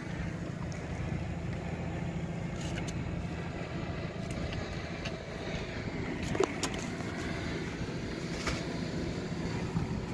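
Boat motor running with a steady low hum, with a few light knocks on board.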